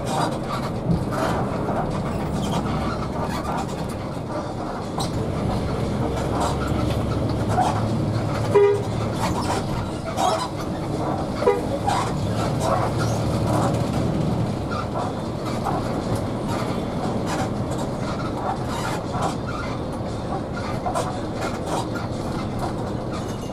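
Inside a moving intercity coach: a steady engine and road drone, with frequent rattling and clicking from the cabin fittings. A brief tone sounds about eight and a half seconds in.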